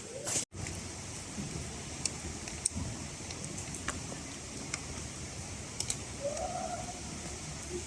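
Outdoor ambience: a steady hiss with scattered light clicks and a short tonal call about six seconds in. The sound cuts out abruptly for a moment about half a second in.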